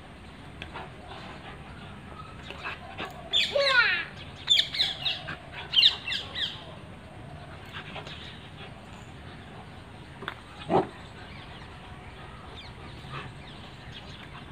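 Animal calls: several quick bursts of high squeals and squawks with falling sweeps, from about three and a half to six and a half seconds in, then a single thud near eleven seconds.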